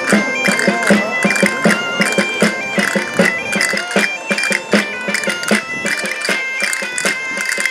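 Asturian gaita (bagpipe) playing a lively dance tune over its steady drone, with a regular drum beat and jingling tambourines.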